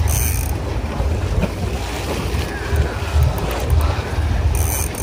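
Wind buffeting the microphone on a boat at sea, a heavy uneven rumble over a steady rush of water, with two brief hissy flares, one at the start and one near the end.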